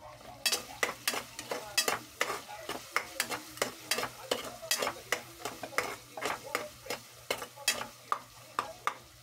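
A metal spoon stirring ground meat frying in oil in an aluminium pot, scraping and knocking against the pot about three times a second, beginning about half a second in.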